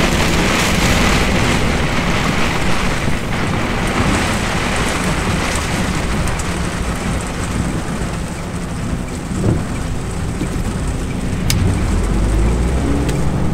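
Heavy rain pelting the windscreen and cab of a MAN TGX semi-truck, heard from inside the cab, with the diesel engine and tyres on the wet road running low underneath.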